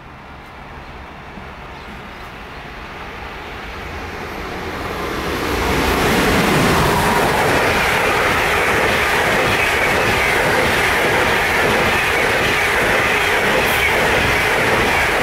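A passenger train of ÖBB Nightjet couchette and sleeper coaches passes close by. It grows louder as it approaches and is loudest from about six seconds in, after which there is a steady rolling rumble and clatter of wheels on the rails.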